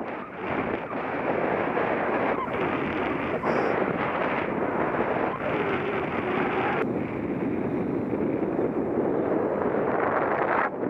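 Airflow buffeting the microphone of a paraglider's flight camera in flight: a loud, rough rushing that rises and falls.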